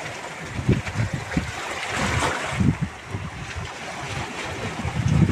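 Wind buffeting the microphone in uneven gusts, over the steady wash of the sea.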